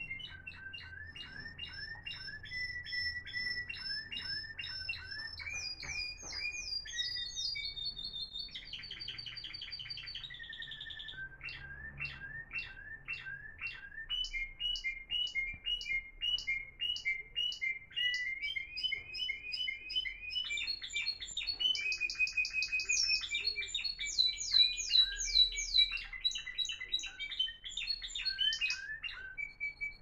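Spanish Timbrado song canaries singing a long, varied song of rapid trills and repeated notes. The phrases change every second or two and overlap at times, and the song grows loudest a little past the middle.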